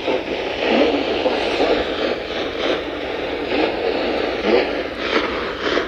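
Weather radio broadcast with heavy static hiss, and a faint automated voice going on under the noise.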